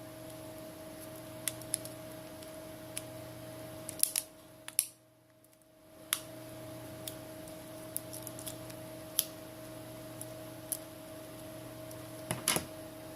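Scattered light clicks and taps of small plastic phone parts and tools being handled as a Samsung Galaxy S7's internal plastic covers are fitted back, over a steady low hum. There is a quick cluster of clicks near the end, and everything drops out for about a second a little before the middle.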